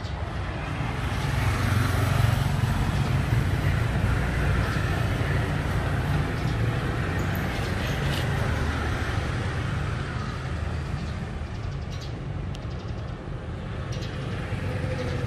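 A motor vehicle engine running steadily. It grows louder over the first two seconds and eases slightly near the end.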